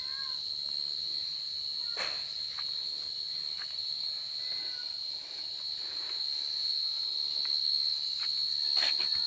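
Steady, high-pitched chorus of night insects, one unbroken tone, with a sharp knock about two seconds in and another near the end, and a few faint short chirps.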